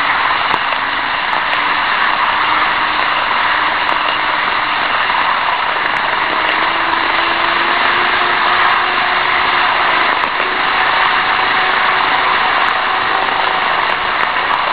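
Steady rolling and whirring of N-gauge model trains running on the track, picked up close by a tiny keychain camera riding on a model freight wagon. A faint motor hum underneath slowly rises in pitch.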